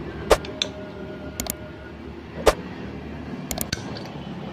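Sharp metallic clicks and clinks as small valve-train parts (spring clip, rocker arms) are fitted by hand in the cylinder head of a small four-stroke petrol boat engine. There are about eight clicks, a few ringing briefly; the loudest come about a third of a second in and about two and a half seconds in.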